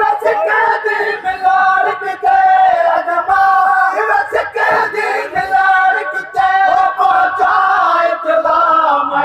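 A noha, a Shia mourning lament, sung loudly by a crowd of men together behind a lead reciter, in long held notes. Sharp slaps of chest-beating (matam) keep time under the voices.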